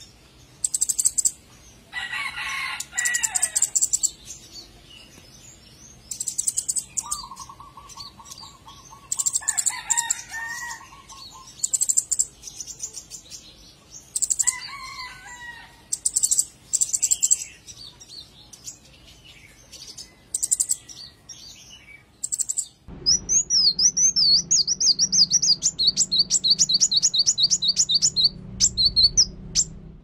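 Scarlet-backed flowerpecker giving bursts of rapid, high ticking calls, with a few lower calls in between. About three-quarters of the way through the sound cuts to a different bird's fast, high trilled song.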